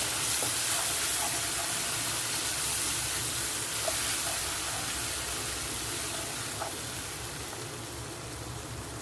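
Onion, carrot and capsicum masala with curd sizzling in hot oil in a pan: a steady frying hiss that slowly fades, with a few faint clicks.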